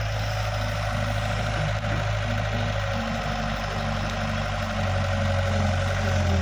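Diesel engine of a KATO crawler excavator running steadily while it swings and works its hydraulics to dig soil for a tractor trolley. The hum grows a little louder near the end as the arm goes down into the dirt.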